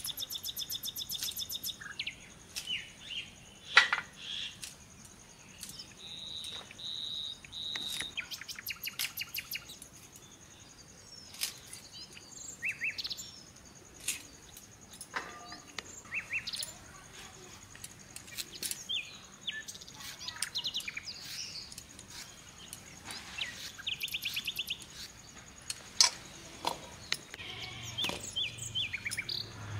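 Small birds chirping and trilling on and off, with a steady high-pitched whine underneath. A few sharp clicks stand out, the loudest about four seconds in and again near the end.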